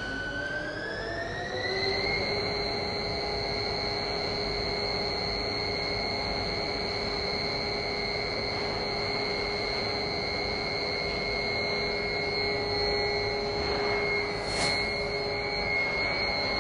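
Industrial ribbon mixer for a rice-soy food blend, its electric drive coming up to speed: a whine rises in pitch over the first two seconds, then runs steadily over the rattle of the agitator turning through the dry powder. One brief click near the end.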